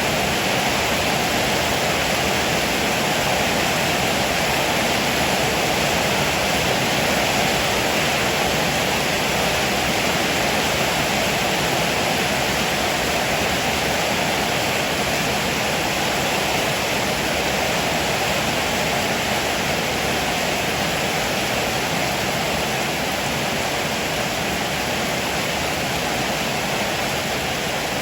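Heavy rain pouring down, a steady, even hiss with no thunder.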